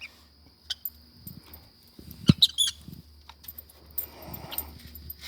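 Lovebirds rustling and tearing at turnip-top leaves with their beaks, with scattered light clicks and a sharper knock about two seconds in, followed at once by a couple of short high chirps. A faint steady high tone runs underneath.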